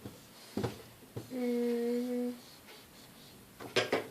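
A girl humming one steady note for about a second, with a few light clicks before it and a quick cluster of sharp taps near the end.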